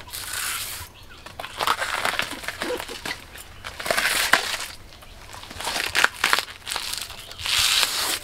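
Layers of a banana stem's fibrous leaf sheaths being peeled and torn away by hand: a series of crisp tearing and crunching bursts, some with sharp snaps, as the stem is stripped down to its tender inner core.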